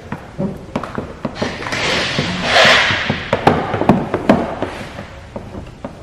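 Hands-on work fitting paint protection film to a car bumper: a run of light taps, crinkles and scrapes from the film and squeegee, with a louder hissing swish about two to three seconds in.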